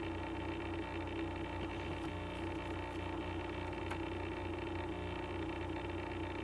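Steady electrical hum made of several constant tones, with a couple of faint clicks.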